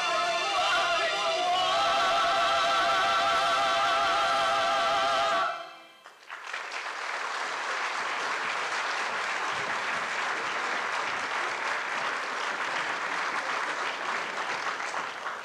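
Operetta voices hold a final sung note with wide vibrato, cutting off about five seconds in. Audience applause follows and thins out near the end.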